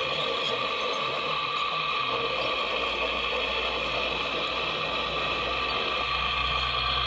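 Hydraulic pump and drive motors of a scale RC Volvo excavator running with a steady mechanical whine as the boom and grab move, with a low hum growing near the end.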